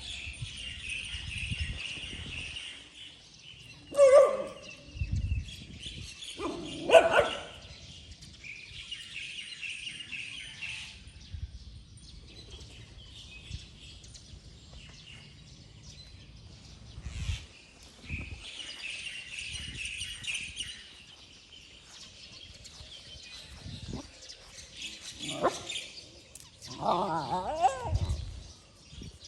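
A puppy barking, two loud short barks a few seconds apart and a longer wavering call near the end, while small birds chirp on and off.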